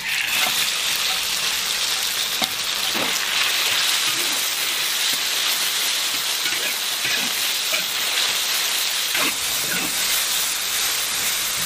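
Marinated lean pork slices dropped into hot oil in a large wok, sizzling sharply at once, then a steady loud frying sizzle as they are stir-fried with a spatula.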